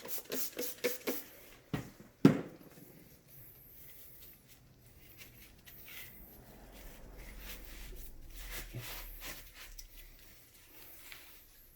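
A rag rubbing over a vacuum cleaner's brush roll: quick wiping strokes at first, then slower, softer rubbing. A single sharp knock about two seconds in is the loudest sound.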